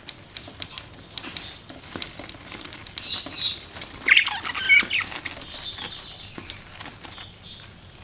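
Budgerigars chattering: light clicks and scratches throughout, a burst of sharp high chirps about three to five seconds in, then a thin whistled note near six seconds.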